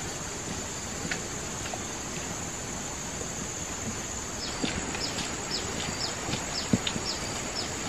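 Plantation ambience: a steady high insect drone, with a bird repeating a short falling call about twice a second from about halfway through. A few thumps stand out in the second half.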